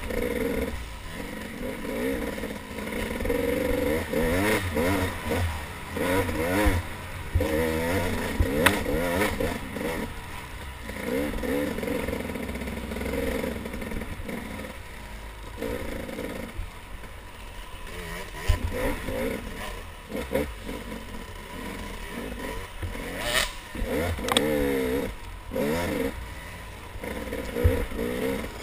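Dirt bike engine heard from the rider's own bike, revving up and down over and over as the rider throttles and shifts along a rough trail. A few sharp knocks cut through it, the loudest about two thirds of the way in.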